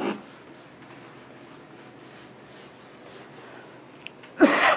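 Quiet room tone, then near the end a short, loud breath noise from a man, a sharp audible intake of breath.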